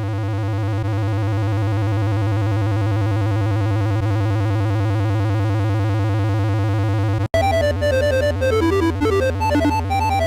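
Electronic synthesizer music: a steady buzzy held tone for about seven seconds cuts off abruptly, and a quick, bouncy synth melody starts.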